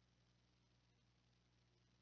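Near silence: a faint steady low hum and hiss.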